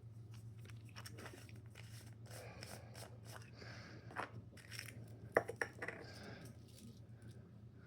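Faint handling sounds of a small cardboard box and a 3D-printed plastic toy: light rustling and scattered small clicks. The sharpest clicks come about four seconds in and as a quick cluster near the middle.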